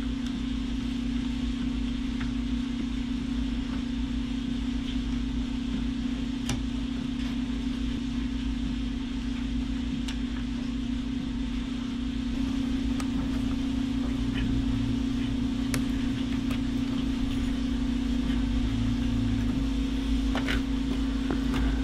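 A steady low hum, a little louder about halfway through, with a few faint clicks and taps from a small screwdriver working the screws of a mini PC's CPU fan.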